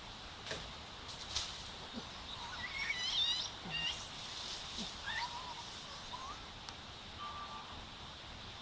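High chirping animal calls in forest: a quick run of chirps about three seconds in, then a few lower whistled notes and one short level whistle near the end. A few sharp clicks come in the first second and a half.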